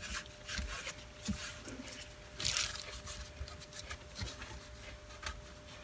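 Dust being wiped off the plastic housing of a small Craftsman cordless circular saw: irregular rubbing strokes with light handling knocks, the longest stroke about two and a half seconds in.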